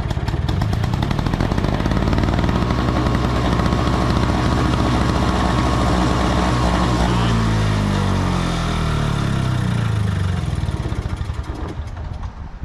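Small two-stroke snowblower engine running on a shot of starting fluid, then slowing with a falling pitch and dying about ten seconds in. It runs only as long as the starting fluid lasts, the sign that no fuel is reaching the carburetor while the ignition works.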